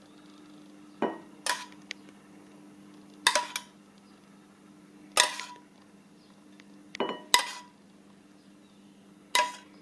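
A metal spoon clinks against a saucepan and ceramic bowls as butter sauce is spooned out: about seven sharp, separate clinks, a few ringing briefly. A low steady hum runs underneath.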